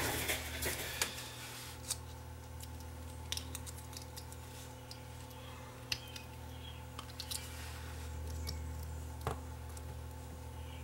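Sparse faint clicks and short scrapes of a small hand tool against a plastic device frame and circuit board as it is taken apart, over a steady low hum.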